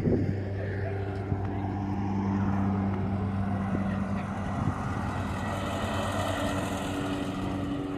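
An engine running steadily, a constant low drone at an unchanging pitch.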